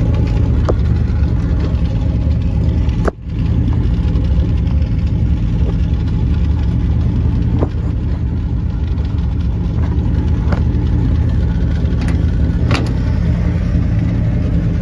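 The 1968 Dodge D300 tow truck's engine running steadily, warming up after a cold start, with a brief break about three seconds in.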